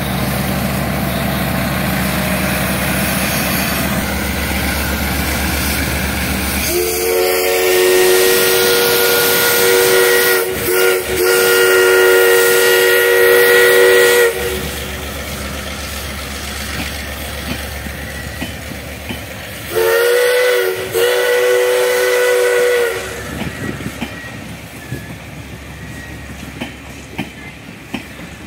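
A diesel locomotive's engine runs at first. Then the DT668 steam locomotive sounds its whistle in a chord: one long blast of about seven seconds, broken briefly near the middle, and a second blast of about three seconds. Near the end the train's wheels click over the rail joints as it rolls past.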